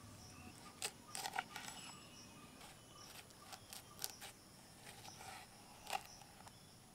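Knife cutting dragon fruit: a scattering of short, sharp clicks and taps of the blade, bunched in two clusters and then once more near the end.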